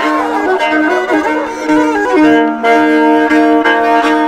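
Violin played with a bow in the instrumental passage of a Chakma gengkhuli ballad. A quick, ornamented melody runs for about the first two seconds, then settles into held notes that are re-bowed several times.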